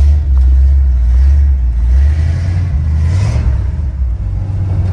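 Low, steady rumble of a car being driven, with a brief swell of hiss about three seconds in.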